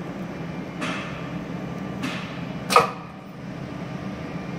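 A cast metal part handled at a bushing press fixture: three short knocks about a second apart, the last a louder metallic clink with a brief ring, over the steady hum of the machine.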